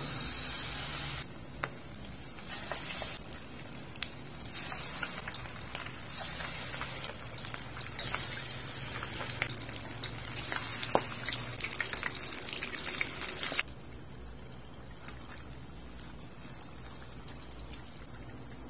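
Battered chicken feet sizzling and crackling in hot deep-frying oil, the sizzle swelling in surges as more pieces go in. About two-thirds of the way through it drops suddenly to a much fainter, steady hiss.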